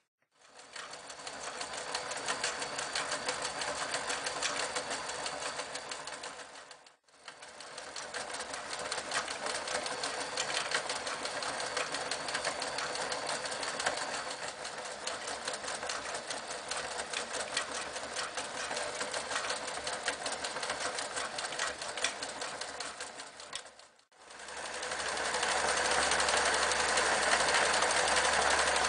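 Riccar 8600 electric sewing machine running and stitching at a steady fast rate, in three runs with short stops about seven seconds in and about 24 seconds in; the last run is louder.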